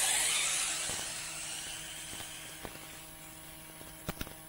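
Arrma Typhon 1/8-scale electric RC buggy running at speed, its motor whine and tyre hiss fading steadily as it pulls away. A few faint clicks come near the end.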